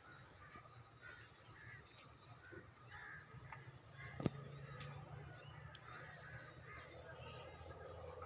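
Crows cawing at intervals, with a single sharp click about four seconds in.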